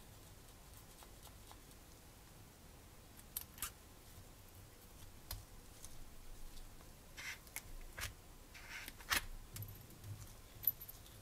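Small metal parts of a model radial engine kit clicking and clinking faintly as they are handled in gloved hands: a scattering of light, sharp clicks, the sharpest two near the end.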